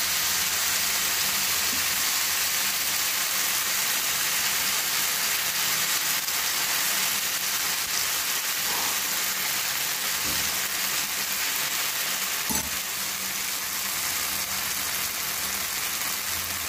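Rice-flake dosa batter sizzling steadily in butter in a hot pan on low flame while a ladle spreads it, with one light knock about twelve seconds in.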